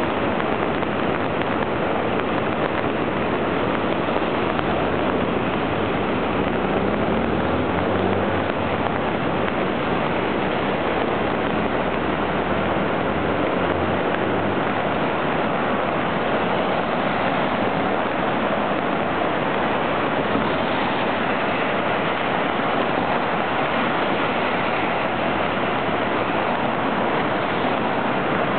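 Storm runoff rushing through a concrete-lined flood-control wash: a loud, steady roar of churning white water, with some low rumble in the middle stretch.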